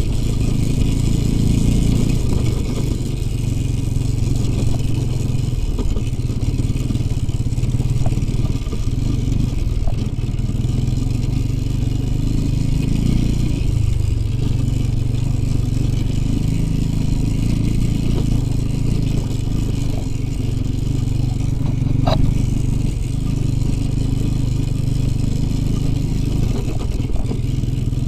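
IZh Jupiter 5 twin-cylinder two-stroke motorcycle engine running under way on a ride, its note rising and falling a little with the throttle. A single sharp click about three-quarters of the way through.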